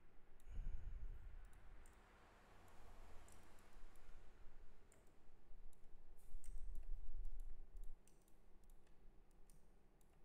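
Light computer mouse clicks, scattered irregularly. A low muffled rumble comes near the start and again, louder, from about six to eight seconds in.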